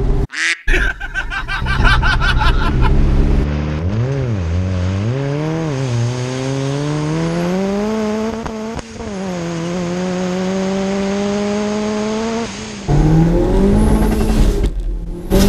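Turbocharged four-cylinder Ford Zetec engine in a Ford Transit Connect van under hard acceleration. A rapid, regular stutter comes first, then the revs rise twice in short bursts and climb steadily through the gear. The pitch drops sharply at a gear change about nine seconds in and climbs again.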